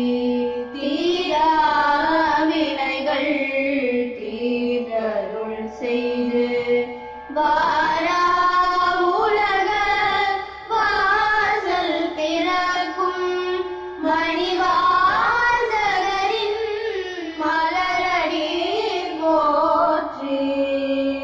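A solo voice singing a Tamil Saivite devotional hymn in Carnatic style: long ornamented phrases that glide up and down, with steady held notes and short breaks between the lines.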